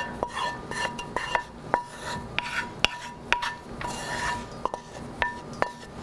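Wooden spoon scraping and knocking cream sauce out of a cast iron skillet over a Dutch oven: a dozen or so irregular sharp knocks, several leaving a short ringing tone.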